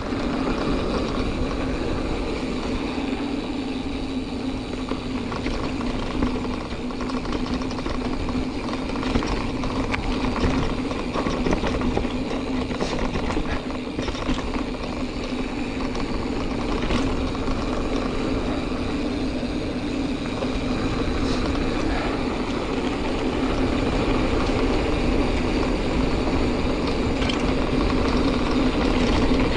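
Giant Fathom 2 mountain bike being ridden over a dirt trail: steady tyre and trail rumble with a constant hum, broken by scattered clicks and rattles from the bike.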